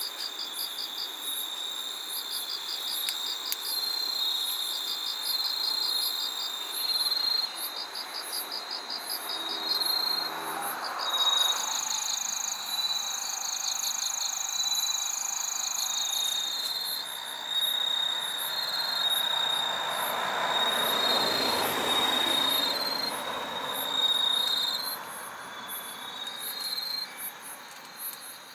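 A chorus of autumn night insects, crickets among them: several high songs overlap, some as rapid pulsed trills and some as steady ringing tones. A soft rushing noise swells and fades twice, about ten seconds in and again around twenty seconds in.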